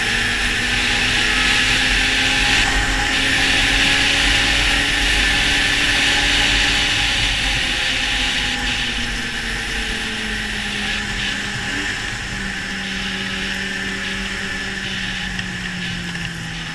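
Polaris two-stroke snowmobile running at speed, with track and wind noise over the engine. The engine pitch holds high, then eases down in the second half as the throttle comes off.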